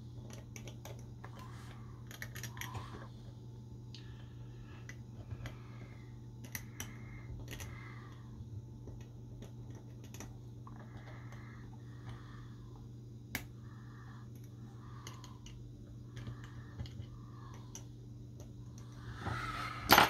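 A small pointed metal hand tool scratching and tapping against a TV main circuit board: short scratches and scattered light clicks, over a steady low hum.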